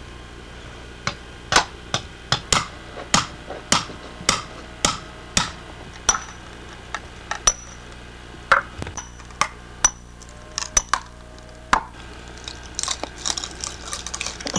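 Cleaver chopping into a very hard chunk of Osage orange wood, trimming its edges square: a quick run of sharp strikes about two a second, then slower, spaced blows.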